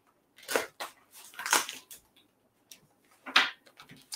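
Packing tape and a cardboard mailer being torn open by hand, in three short rips with the loudest near the end.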